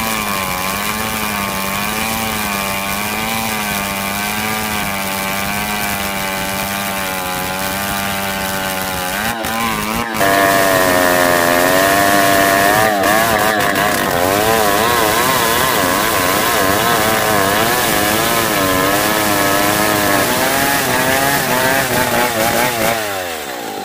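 Stihl two-stroke chainsaw running under load, ripping a log of soft pule wood lengthwise into planks; its pitch wavers steadily as the chain works through the cut. About ten seconds in it gets louder, and near the end the engine speed drops.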